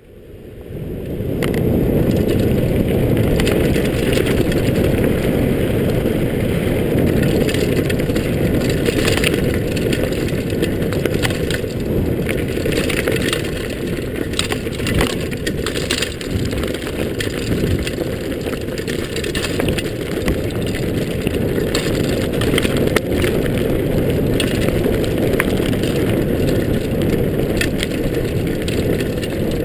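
Mountain bike descending fast on a gravel forest track, heard through a handlebar-mounted action camera: steady wind rush and tyre rumble starting about a second in, with frequent small rattles and clicks from the bike over the rough ground.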